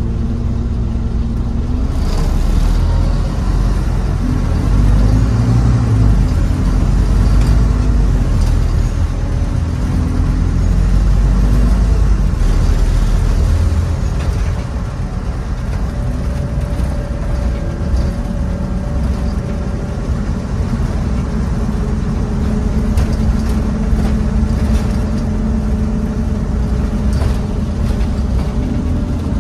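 A Scania N230UB OmniCity bus's diesel engine running, heard from inside the bus. The engine is louder and heavier for the first half, then settles to a quieter, steady hum, with scattered clicks and rattles.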